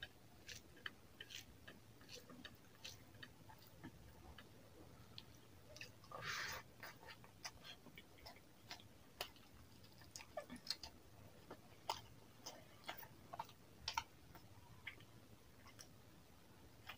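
Close-up eating sounds of rice and chicken curry eaten by hand: wet squishing as fingers mix rice into the gravy, then scattered mouth clicks and smacks of chewing. A short, louder rustling burst comes about six seconds in.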